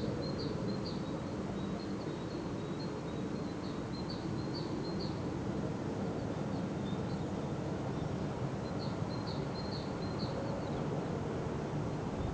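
A songbird singing phrases of short, high chirped notes, with pauses of a few seconds between phrases. Underneath is a steady low hum from a paper mill.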